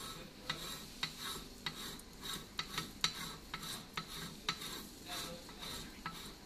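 Honeywell XNX transmitter's threaded metal front cover being screwed on by hand: a scraping, rubbing sound broken by many irregular sharp ticks.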